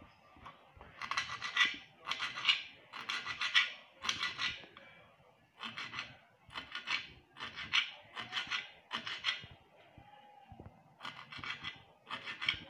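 Kitchen knife chopping scent leaf and utazi leaves on a glass cutting board: short runs of quick, sharp clicking taps as the blade strikes the glass, with brief pauses between runs.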